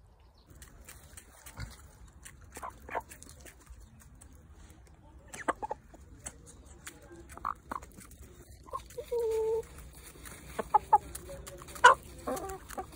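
Hens clucking while pecking grain from an open hand, with short sharp taps from the pecking. One longer, held call comes about nine seconds in, and a burst of clucks follows near the end.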